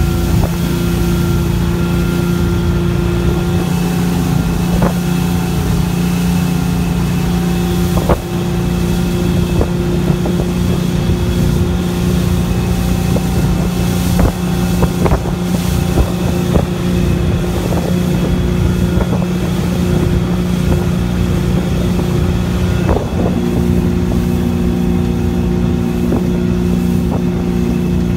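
Speedboat engine running steadily at speed, with wind and rushing water and a few short thuds.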